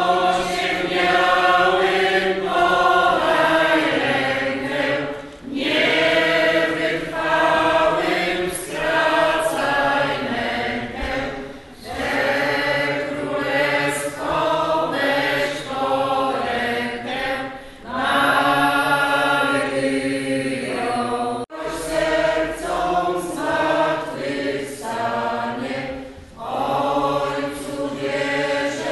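Church congregation singing a hymn in Polish, in long sung phrases with short pauses between them. The singing cuts off abruptly about two-thirds of the way through and resumes a moment later.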